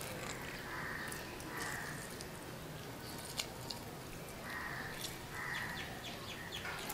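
Raw chicken pieces being seasoned by hand, with a few short rasping sounds and light ticks, including a quick run of ticks near the end as the seasoning is sprinkled on.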